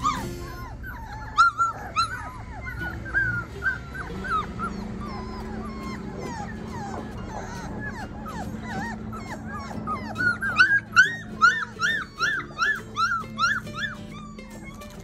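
Standard Bernedoodle puppies, four weeks old, whining and yipping with many short high-pitched cries, becoming a louder quick run of about three a second near the end.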